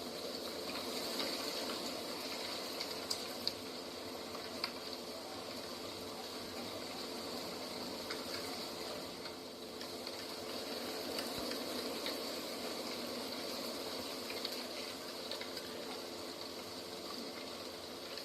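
Steady rushing outdoor nature ambience, with a few faint clicks and ticks scattered through it.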